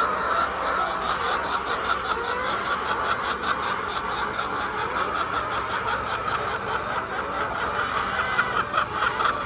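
A flock of laying hens clucking and chattering, many calls overlapping, with a fast, even pulsing chatter higher up.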